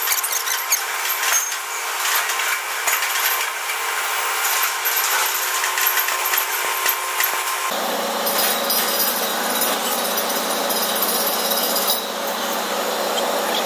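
Robotic flux-cored arc welding on a steel pipe-and-flange joint: a steady crackle and sizzle of the arc. About eight seconds in the sound changes, and a steady low hum appears beneath the crackle.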